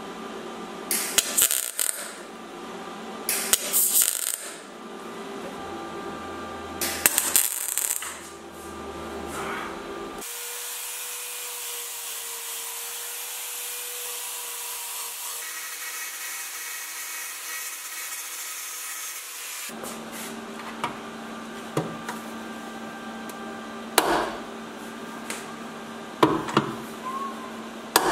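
MIG welder laying spot welds on a steel repair panel, each a short burst of crackling hiss; four of them in the first eight seconds. Then a steady hiss for about ten seconds, followed by scattered clicks and knocks of metal tools being handled.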